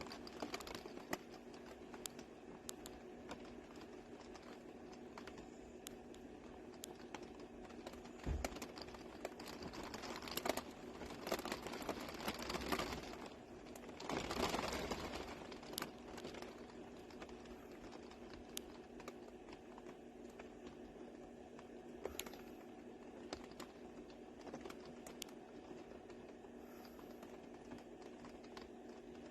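Rain falling on a van's metal roof, heard from inside: a soft steady patter with irregular individual drop ticks, heavier for a few seconds about halfway through. A faint steady hum runs underneath.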